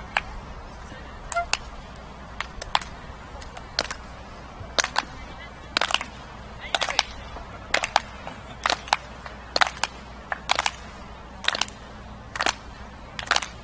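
Spectators clapping slowly in unison, about one clap a second and slightly ragged, the rhythmic clap that urges on a high jumper before her run-up.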